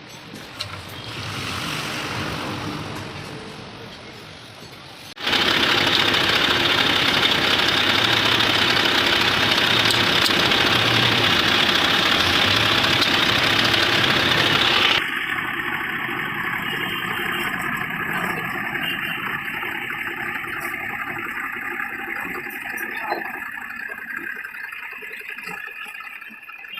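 Tractor engine running, which jumps suddenly louder about five seconds in and drops back abruptly about ten seconds later to a steadier, quieter run.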